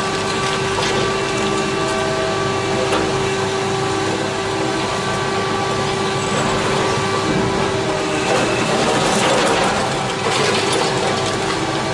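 High-reach demolition excavator at work: its diesel engine and hydraulics run steadily under a constant hum, with crunching and cracking as the crusher jaws bite into the building's concrete.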